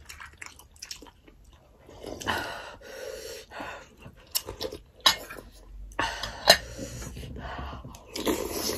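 Close-up eating sounds: noodles and soup being slurped and food chewed, with a long noisy slurp about two seconds in, a few sharp clicks in the middle and another slurp near the end.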